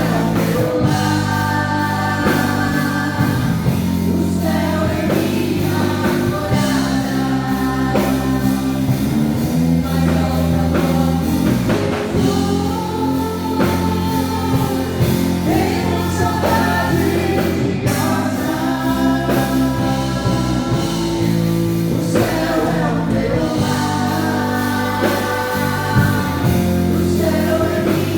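Live gospel worship music: a praise band with bass and keyboard chords and sung vocals.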